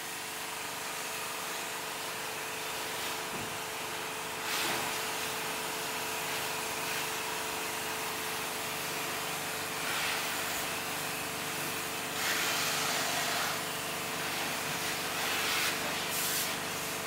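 Pressure washer jet spraying water onto a car's bodywork: a steady, dense hiss over a steady machine hum. The hiss swells louder several times as the jet plays across the panels.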